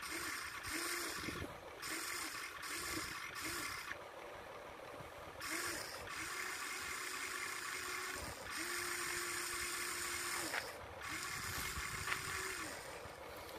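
Huina 1593 remote-control excavator's electric motors whining as the arm and bucket move. It comes in several short bursts that start and stop, then three longer runs of a second and a half to two seconds each.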